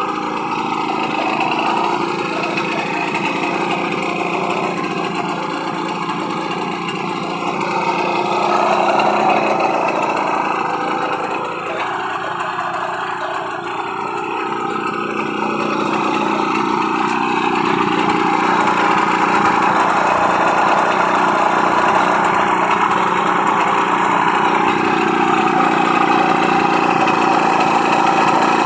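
Simson S51 moped's two-stroke single-cylinder engine running steadily, swelling briefly about a third of the way in and running a little louder through the second half.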